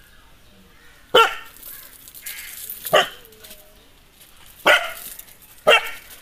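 Nadan dog barking aggressively in four single, sharp barks spaced one to two seconds apart.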